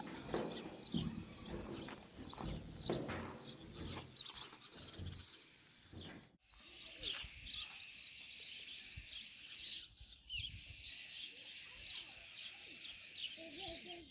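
Small birds chirping rapidly and repeatedly, with low, irregular background sounds in the first few seconds.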